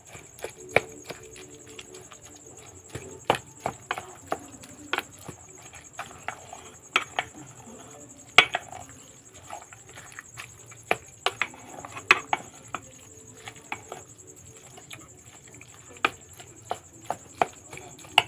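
Irregular sharp taps and knocks, about one or two a second, over a steady high-pitched hum.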